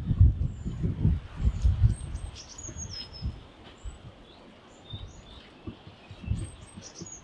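Wild birds chirping with many short high calls and quick falling notes. Under them are low thumps and rumble, loudest in the first two seconds and fainter after that.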